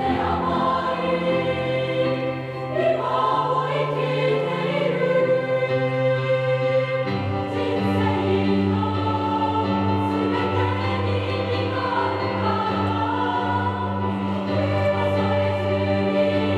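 A large choir of students singing together, with keyboard accompaniment; the bass line underneath fills out about seven seconds in.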